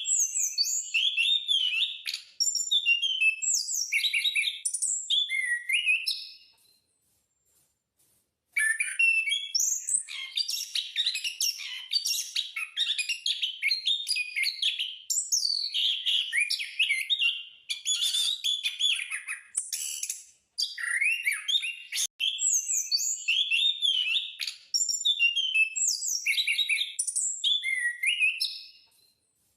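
Captive Indonesian thrush (anis/punglor) in full song: long runs of rapid, varied whistled and chirped notes with brief pauses between runs.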